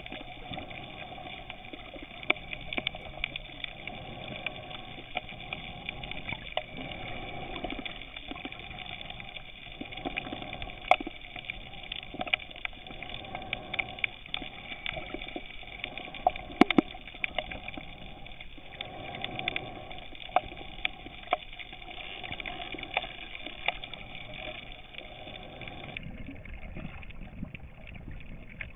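Underwater sound picked up by a camera beneath the surface: a steady hiss with many scattered clicks and crackles, a few sharper than the rest. The upper hiss thins a little near the end.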